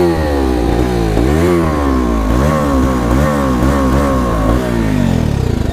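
Bajaj Dominar 250's single-cylinder engine being revved in short throttle blips while the bike stands still, the pitch rising and falling about twice a second.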